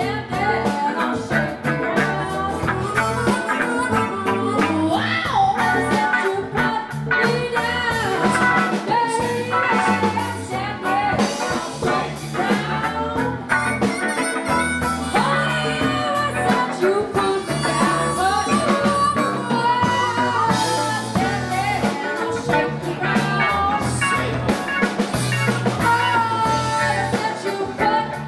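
Blues music with guitar and singing over a steady bass and drum backing.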